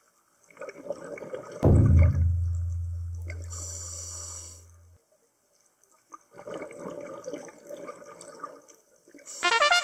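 Scuba regulator exhaling, a gurgling rush of bubbles, twice. About one and a half seconds in, a loud deep boom cuts in and fades away over about three seconds, and near the end a brass fanfare starts.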